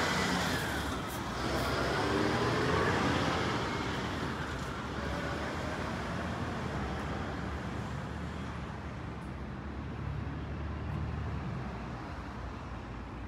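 Street traffic. Vehicles pass close by in the first few seconds, their tone rising and falling in pitch, over a steady low traffic hum that eases slightly near the end.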